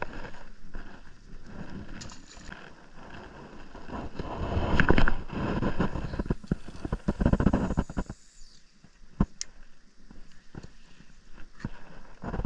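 Wind buffeting the microphone, with rustling and knocking handling noise, loudest between about four and eight seconds in, then quieter with a few sharp clicks.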